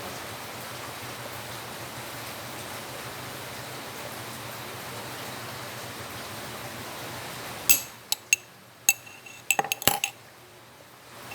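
Steady hiss, then from about eight seconds in a quick run of sharp clinks: a glass and a spoon being handled and set down.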